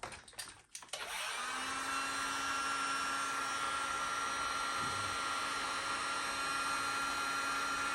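Heat gun switched on about a second in after a few light clicks, then running steadily with a whir and a steady hum, shrinking heat-shrink tubing over a spliced wire.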